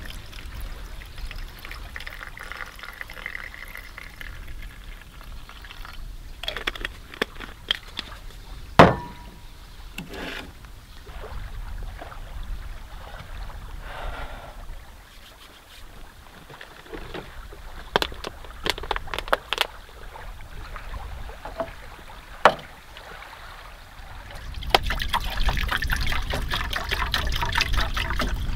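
Water trickling and pouring, with scattered sharp clicks and knocks through the middle. A louder, steady rush of noise comes in near the end.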